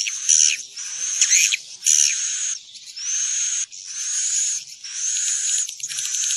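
Swiftlets calling: about seven chirps in a row, one roughly every second, each rising into a high tone and holding it with a fine buzzy twitter. This is a recorded swiftlet lure call of the kind played in swiftlet houses to draw the birds in to roost.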